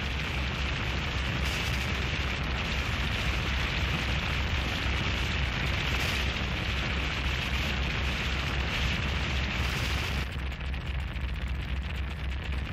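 Harsh noise music: dense, distorted static over a throbbing low rumble. About ten seconds in, the upper hiss drops away abruptly, leaving a thinner crackle over the rumble.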